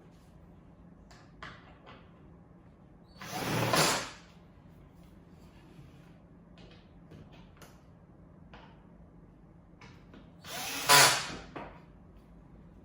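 A cordless drill-driver runs in two short bursts, about three seconds in and again about ten seconds in, driving screws into the platform's countersunk holes. Light clicks and knocks of parts being handled come between.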